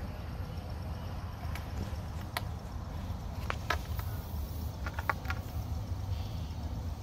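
Outdoor background noise: a steady low rumble, with a handful of short, sharp ticks in the middle few seconds.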